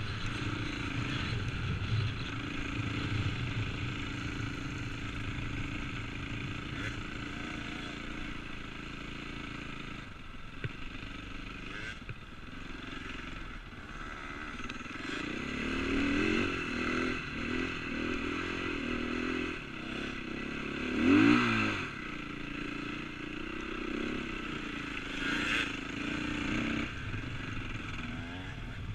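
KTM 450cc four-stroke single-cylinder motocross bike riding across sand dunes, heard from the rider's helmet: the engine pulls steadily at first, then revs up and down in the second half, with one sharp rise-and-fall about three quarters of the way through, the loudest moment.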